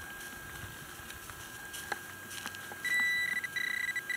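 Handheld metal-detecting pinpointer at a freshly dug hole in a lawn. After a few faint ticks, a steady high beep tone starts about three seconds in and holds with brief gaps: the pinpointer sounding over a metal target close to the probe.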